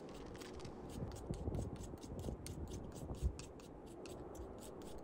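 Knife blade shaving thin strips off a split kindling stick: quick scraping strokes, several a second.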